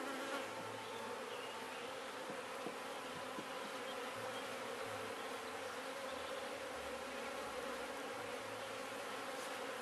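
Steady buzzing of many honeybees swarming out of an opened top bar hive: the colony is agitated after its comb was disturbed.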